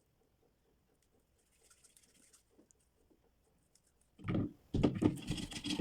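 Oiled hands squeezing and kneading a glue-and-talc slime: faint, scattered sticky clicks, then louder, rougher handling noise starting about four seconds in.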